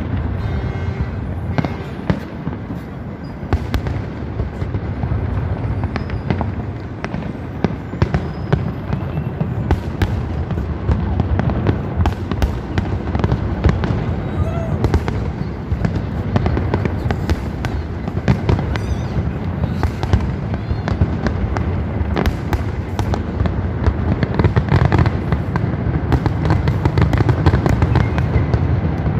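Fireworks display: a dense, continuous string of sharp bangs and crackles over a steady low rumble of booms.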